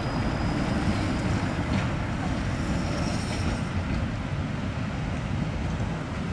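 Articulated low-floor tram running away along the track, a low rumble that slowly fades, mixed with wind noise on the microphone. A faint high steady whine stops about three and a half seconds in.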